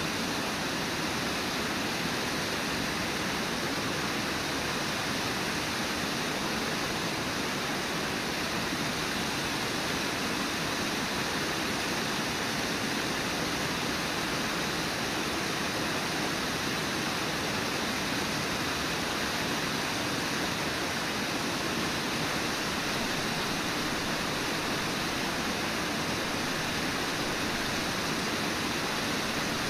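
Brooks Falls, a river waterfall, rushing steadily: an even, unbroken hiss of water pouring over the lip.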